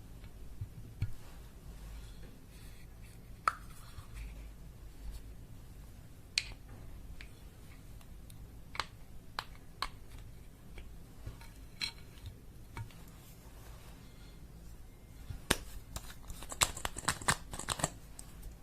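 Slime being kneaded and mixed by hand, making scattered sticky clicks and pops, with a quick run of crackling clicks near the end.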